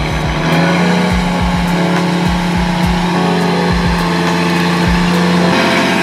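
Electronic background music: kick-drum beats over a held bass note, with synth chords that change about every half second.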